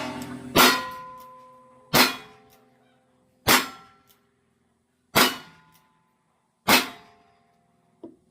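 Pistol fired five times at a slow, steady pace, about one shot every second and a half, each shot followed by a metallic ringing that fades out.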